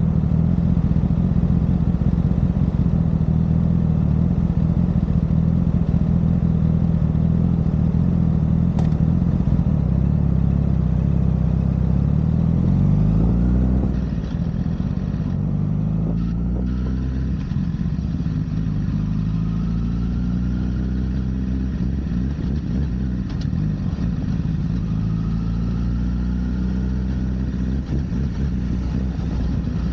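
Honda CBR1000RR's inline-four engine running under way, holding steady revs for about the first twelve seconds. The revs then fall as the bike slows, and after that they rise and fall several times.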